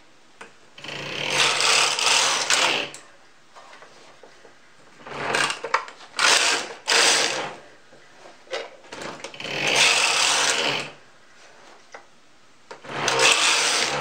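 Carriage of a Brother KH-260 bulky knitting machine being pushed back and forth across the needle bed, knitting rows: a rasping slide on each pass, about five passes of a second or two each, with short pauses between.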